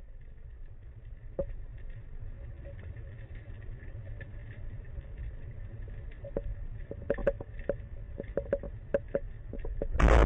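Underwater ambience through a diving camera: a steady low rumble of moving water, with scattered sharp clicks and ticks that grow more frequent in the second half. A loud rush of water noise starts at the very end as the diver moves.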